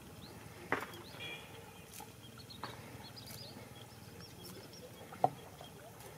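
Fresh coriander being pulled and cut against an upright fixed blade, giving a few soft snips and taps, the sharpest about five seconds in. Small birds chirp faintly and high in the background.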